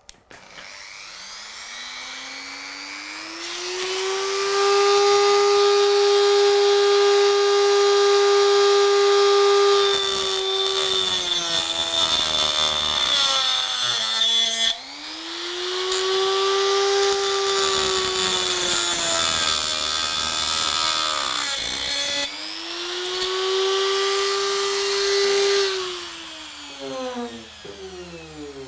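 Dremel rotary tool with a thin cutting disc, cutting through model railway rails at a baseboard join. The motor spins up with a rising whine, then runs with a loud grinding hiss while the disc cuts, dipping and picking up again a few times, and winds down with a falling whine near the end.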